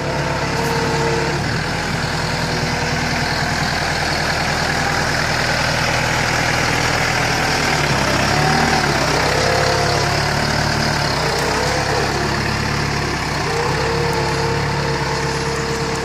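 LS R4047 compact tractor's diesel engine running steadily as the tractor drives slowly along a woodland track. A few short rising-and-falling tones sound over the engine about halfway through and again near the end.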